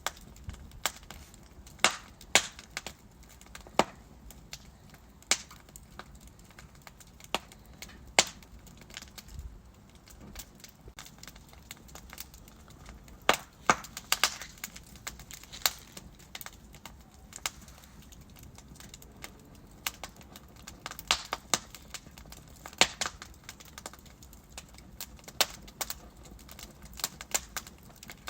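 Wood fire burning in a fireplace, crackling with irregular sharp pops from the burning logs. Some pops are much louder than others, over a low steady rumble of the flames.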